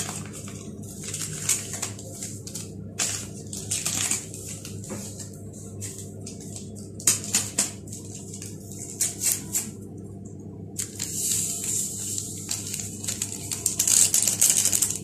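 Paper vanilla sachet being crinkled and torn open, in short scratchy rustles that come in clusters, over a steady low hum.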